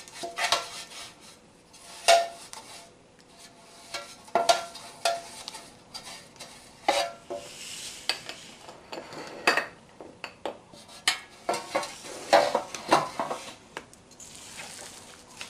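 Dark metal bread loaf pans clanking and scraping as they are picked up, stacked and set down on the counter: a dozen or so sharp, irregular knocks, some ringing briefly, with a couple of soft rustles between.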